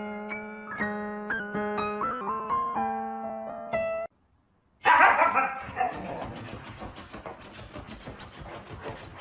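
Piano music that cuts off about four seconds in. After a brief gap, a Siberian husky gives one loud vocal burst, followed by a fast run of short rasping sounds that fade away.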